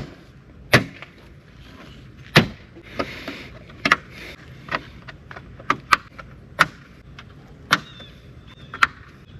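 Irregular sharp clicks and knocks, about ten of them, as a Jeep Wrangler's front grille is fitted back into place.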